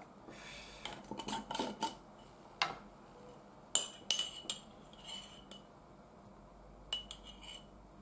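Metal teaspoon clinking and scraping against a glass jar while scooping powder, then tapping on a ceramic cup: a string of separate light clicks and taps.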